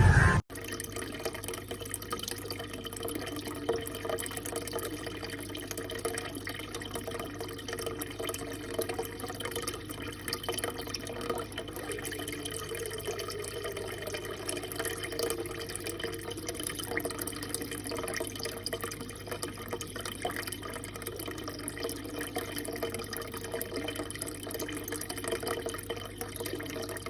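Steady running or trickling water, with a low steady hum underneath.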